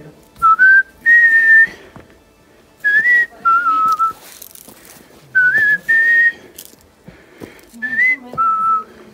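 A person whistling a short tune close by: four two-note phrases, each a short rising note followed by a longer held note, with breath hiss on the notes.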